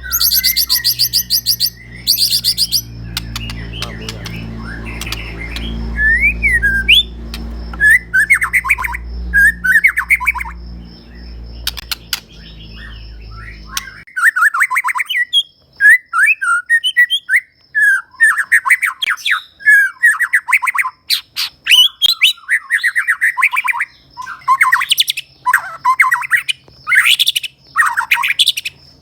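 White-rumped shama singing hard: a long, varied run of whistled phrases, fast trills and harsh squawking notes, the bird showing off its repertoire of mimicked calls. A low steady hum lies underneath and cuts off about halfway through.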